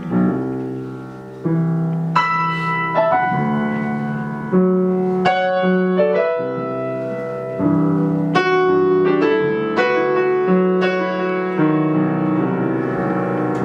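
Piano playing an instrumental passage between sung lines: chords struck over a moving bass line, changing every second or so.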